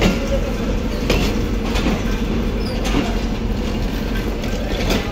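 Passenger train arriving at a station platform, its coaches rolling past with the wheels clacking over rail joints about once a second over a steady rumble and hum.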